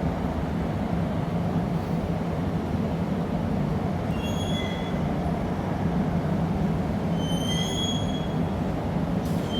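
Steady low roar of the gas-fired furnaces in a glassblowing studio, with two short high squeals, one about four seconds in and one near eight seconds.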